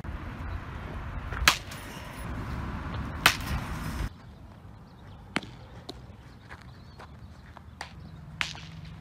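Baseball bat striking pitched balls: two sharp, loud cracks a little under two seconds apart over a steady low outdoor rumble. After that the sound drops to a quieter background with a few faint scattered clicks.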